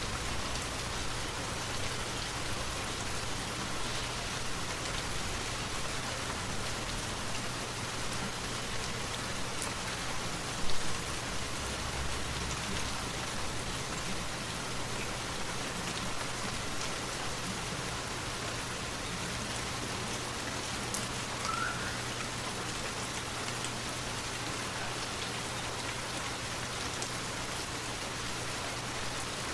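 Forest waterfall: a steady, even rush of falling, splashing water, with a brief louder thump about a third of the way in and a faint short rising chirp past the middle.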